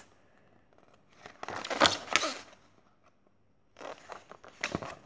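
Paperback picture book being handled, its pages rustling and flapping in two bursts: a louder one about a second in and a second near the end.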